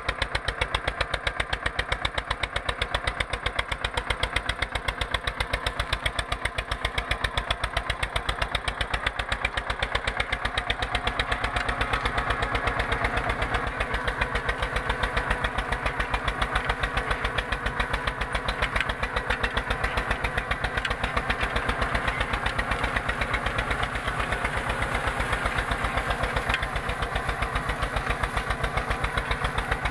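Eicher 242 tractor's diesel engine running steadily with a fast, even chugging while pulling a 16-disc harrow.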